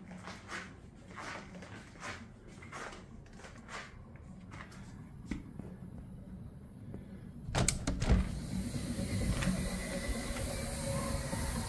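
A series of soft knocks and handling noises, then about two-thirds of the way through an abrupt switch to a steady, louder rushing noise with a low rumble.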